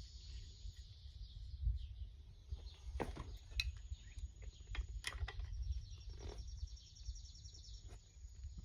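Quiet outdoor background with faint bird or insect chirping, broken by a few light clicks about three, three and a half and five seconds in.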